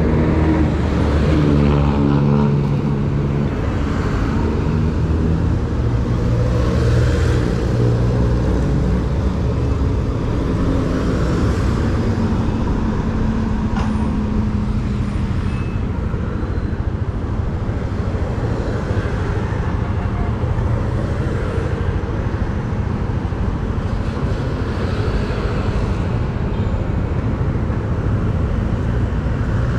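Motorcycle engine running under way through city traffic, its pitch stepping up and down over the first several seconds as the bike speeds up and slows, then settling into a steady rush of engine, road and traffic noise.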